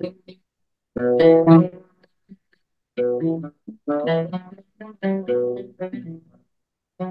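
Turkish oud plucked with an eagle-feather plectrum, playing a few short phrases of notes with brief silences between them.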